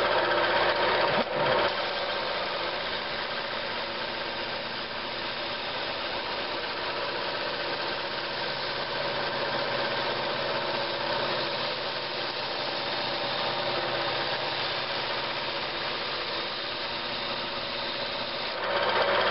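Shopmade lathe-driven drum sander running, its sandpaper-wrapped drum sanding the face of a segmented wooden ring: a steady hiss of abrasive on end grain over the hum of the lathe. The ring is being taken down flat until the pencil marks on its face are gone. The sound is a little louder for the first second and again near the end.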